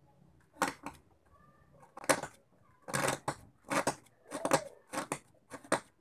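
A cutter blade shaving a new carbon brush for an electric hand mixer's motor down to size so it fits its holder, in about nine short, uneven scraping strokes.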